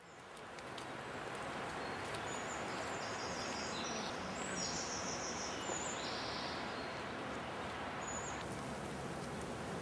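Small birds chirping in short high calls over a steady outdoor hiss, fading in at the start; the chirps thin out after about six seconds.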